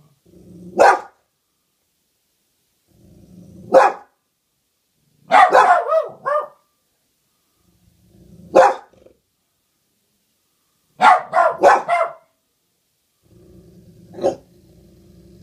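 A dog barking in bouts at something outside the window, about six bouts in all. Each bout starts with a low, steady sound and builds into a sharp bark. Two of the bouts hold a quick run of three or four barks, one a few seconds in and one near the end.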